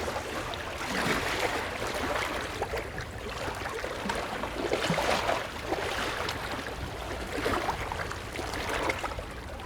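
Water sloshing and splashing in uneven swells every second or two, with small crackling splashes in between.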